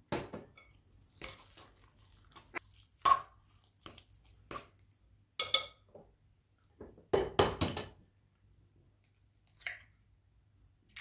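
Metal fork stirring a thick, chunky mash in a glass bowl: irregular squelching scrapes with sharp clinks of the fork against the glass, the loudest about 3 seconds in and a longer run of stirring about 7 seconds in.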